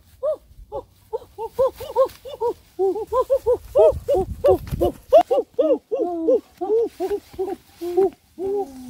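Frogs calling in a chorus: short hooting calls repeat rapidly, several callers overlapping at different pitches. A brief low rumble comes about four seconds in.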